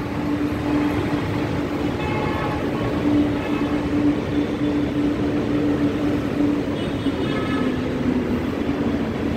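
A Chennai Metro train approaching along the platform: a steady low rumble with a constant hum that dips slightly in pitch near the end, and faint brief high-pitched squeals twice.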